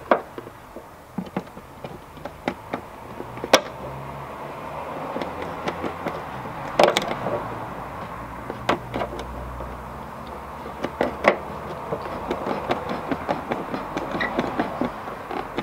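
Screwdrivers clicking and scraping against plastic trim screws as they are pried and spun out of a VW Golf Mk3's plastic windshield cowl cover: many small irregular clicks, with a few louder snaps spread through. A low rumble swells in the middle.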